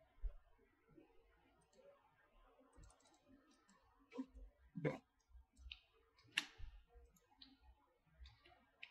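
Near silence broken by a handful of short, sharp clicks from a computer mouse, the clearest between about four and six and a half seconds in.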